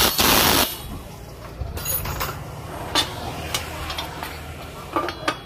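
Scattered light metal clicks and knocks of small two-stroke engine parts and hand tools being handled during reassembly, after a loud hiss-like burst of noise in the first half second, over a low steady hum.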